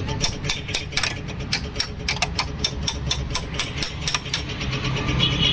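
An engine running at idle, a steady low rumble with a regular, rapid ticking of about five ticks a second.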